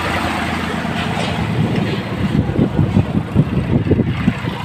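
Fairground Ferris wheel in motion: a steady engine drone, with the metal gondolas and steel frame rattling and clanking rapidly from about two seconds in.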